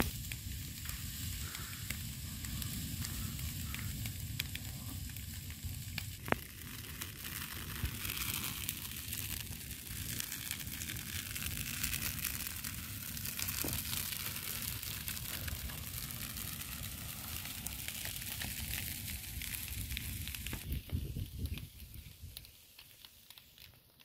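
Wildfire crackling as flames burn through dry undergrowth and small trees: a dense stream of small crackles and pops over a steady low rumble, fading away near the end.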